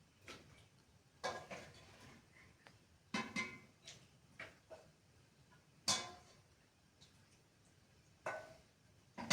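Scattered knocks and clatter of objects being handled, about eight separate short strikes spread irregularly, each dying away quickly.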